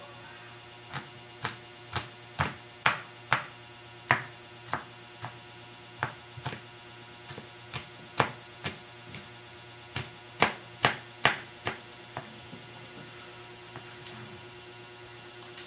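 Kitchen knife chopping garlic on a plastic cutting board: sharp knocks about two a second, stopping about twelve seconds in.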